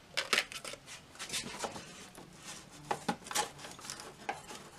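Irregular light clicks, taps and scrapes of a screwdriver and fingers working against the metal chassis and cabinet of a vintage tube radio.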